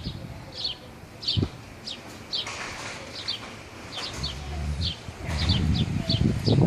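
A small bird chirping over and over, short high chirps that slide down in pitch, about two a second. A low rumble joins about four seconds in and grows toward the end.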